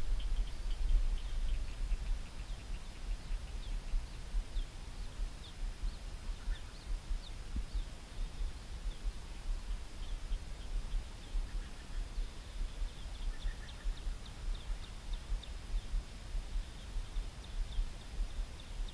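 Wind rumbling and buffeting on the microphone, with many short, high chirps of small birds scattered throughout.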